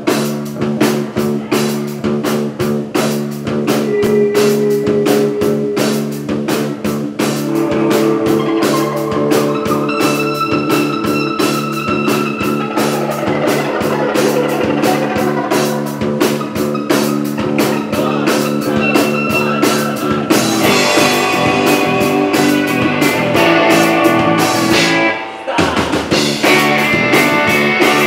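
Rock band playing live: electric guitars and bass holding chords over fast, steady drumming. About 25 seconds in the band drops out for a moment, then crashes back in.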